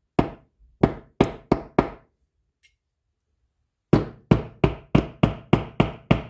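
Small ball-peen hammer tapping a punch to drive a pin home in a Penn Senator reel's side plate: sharp taps, five in the first two seconds, then after a pause a faster, even run of about eight taps, roughly three a second.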